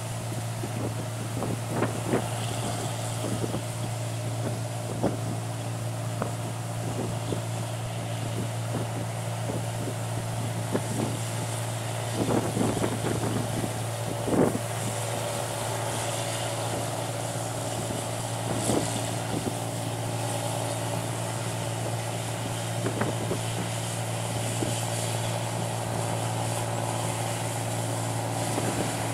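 A 1545 rice combine harvester runs steadily under load as it cuts and threshes paddy. The engine drone is even, and irregular knocks and rattles come from the machinery.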